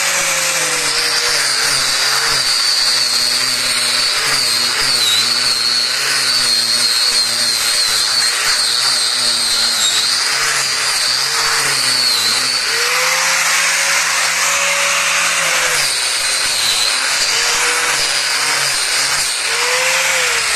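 Bosch PWS 750-115 750 W angle grinder running with a coarse-grit sanding disc, sanding the surface of an old wooden board. A steady high motor whine with the sanding noise under it; the pitch sags several times as the disc is pressed into the wood and climbs back as the load eases.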